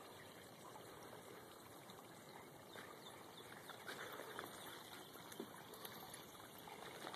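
Near silence: a faint steady outdoor hiss, with a few faint soft noises between about four and five seconds in.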